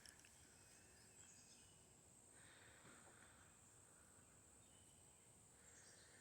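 Near silence: faint outdoor ambience of a steady high insect trill, with a lower buzzing swell that rises and fades about every three seconds and a few faint bird chirps.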